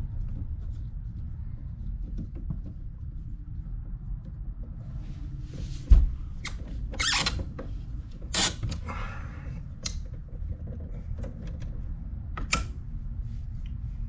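Hands and tools working the wiring and breakers inside a live electrical breaker panel: a run of clicks, knocks and short scrapes, the loudest a knock about six seconds in, over a steady low rumble.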